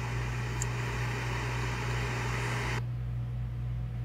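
Steady low hum with a background hiss; the hiss cuts off suddenly near the end, leaving only the hum.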